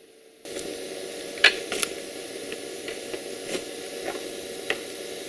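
Steady outdoor hiss starting about half a second in, with a scattered series of light clicks and taps, the sharpest about one and a half seconds in, as a wire-fence gate on a wooden post is handled.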